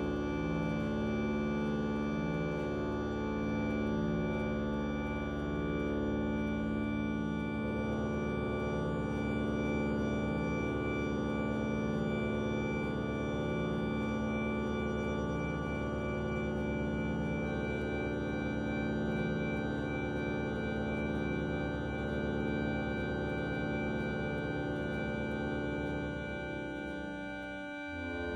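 Harmonium playing sustained, slowly shifting chords of many held tones. The chord changes about a quarter of the way in, a high steady tone joins around the middle, and the sound thins briefly just before the end.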